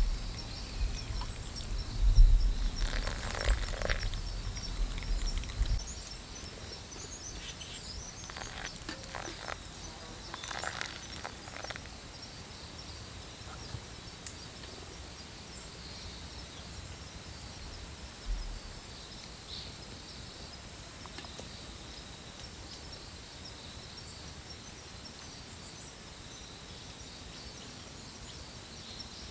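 Hot water from a kettle trickling slowly into a paper coffee filter in short spells during the first dozen seconds, over a low rumble in the first six seconds. Behind it, outdoor ambience with faint insects and birds chirping.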